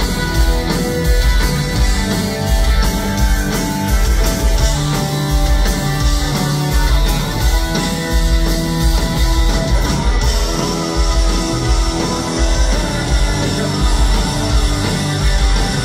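Live punk rock band playing at full volume: distorted electric guitars, bass guitar and drums over a steady driving beat, with keyboard.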